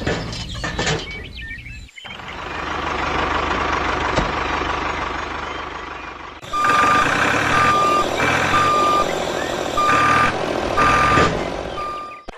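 Vehicle reversing alarm beeping about once a second in a single steady tone over a running truck engine. It starts a little past halfway, after a stretch of engine rumble.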